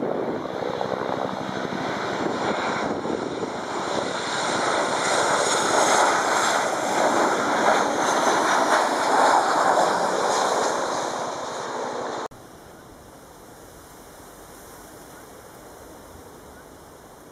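Boeing 737 jet engines passing low overhead on landing approach, a loud rush that builds to a peak, with a high whine falling in pitch as it goes by. The sound cuts off abruptly about twelve seconds in, leaving a faint steady background.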